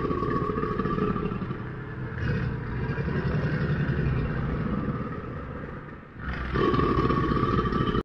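Crocodile growling, a low rough rumble that dips about six seconds in and comes back louder.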